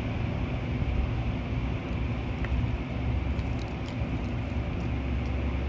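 Steady low rumble of continuous background noise, with a faint tick about two and a half seconds in.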